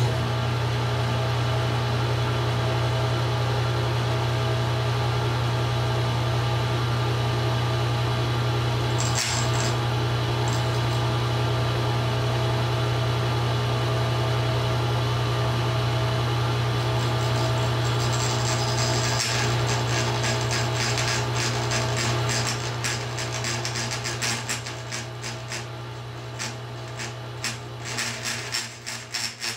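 Table saw running with a carbon steel dado set spinning, a steady motor hum. An oilstone held over the blade touches the tips of the teeth, once briefly about a third of the way in and then more and more from about two-thirds through, adding rapid fine ticking and scraping as the teeth are ground flat to one diameter.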